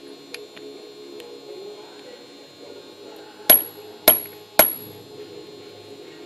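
Hammer blows driving a 1/4-inch rod coupling onto a fitting: three sharp metallic strikes about half a second apart, a little past halfway, each ringing briefly.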